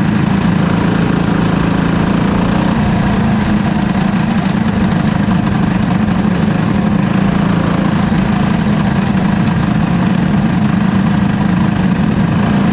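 Racing kart's single-cylinder engine running at low, steady revs, heard up close from the kart itself.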